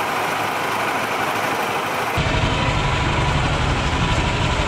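Downtown street traffic noise, engines running. About two seconds in, a heavier low rumble takes over.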